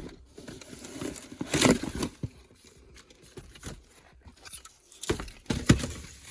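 Cardboard box and plastic packaging being handled and opened: irregular rustling and crinkling with a few sharper knocks, the loudest about a second and a half in and near the end.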